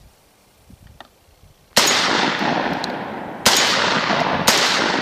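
Three shots from a Carina AS-12 12-gauge semi-automatic shotgun, firing mixed birdshot field loads, each followed by a long rolling echo. The first comes a little under two seconds in, the second about a second and a half later, and the third about a second after that.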